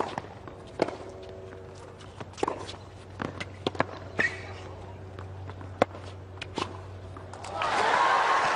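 Tennis rally on a hard court: a series of sharp racquet strikes and ball bounces about a second apart. Near the end, crowd applause rises as the point ends.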